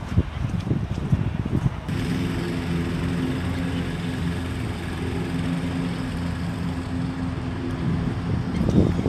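Wind buffeting the phone's microphone in gusts, then from about two seconds in a steady low motor hum with several fixed tones, which fades near the end as the wind picks up again.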